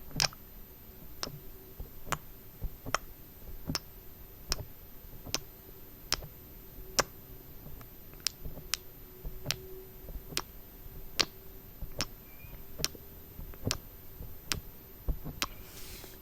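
Light, sharp taps in a very even rhythm, about one every 0.8 seconds: fingertips patting sunscreen onto the camera in an ASMR role-play.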